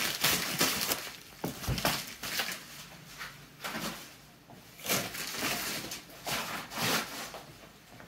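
A shipping box being opened and unpacked by hand: irregular rustling, crinkling and scraping of packaging, with a soft knock about a second and a half in.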